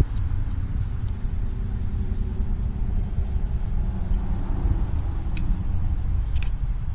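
A steady low rumble with no clear source, and two faint clicks near the end from a screwdriver working on the distributor's ignition points.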